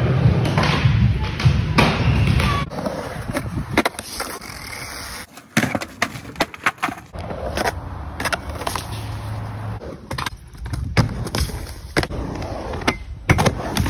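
Skateboard wheels rolling on ramps and concrete, broken by many sharp clacks and thuds as boards hit the ground and skaters fall.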